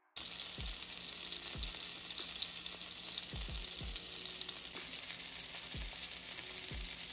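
Pork chops sizzling in hot oil in a frying pan: a steady hiss that starts suddenly just after the start.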